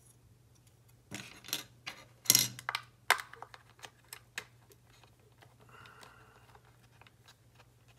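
Light plastic clicks and clacks from handling an automatic foaming soap dispenser's removed battery-compartment cover and its charging cord on a wooden tabletop, a handful of sharp knocks with the loudest about two seconds in, then a brief faint rustle near the end.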